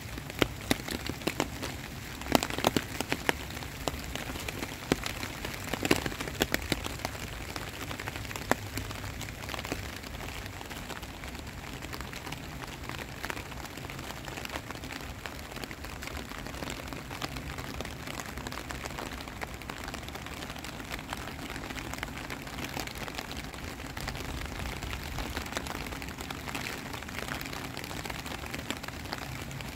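Rain falling steadily on a street and trees, a continuous hiss. For the first nine seconds or so, sharp taps of large drops land close by.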